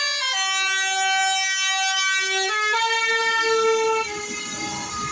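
Bus telolet horn: a set of air horns playing a short tune in held notes that step up and down in pitch, stopping about four seconds in. A low rumble of noise is left after it.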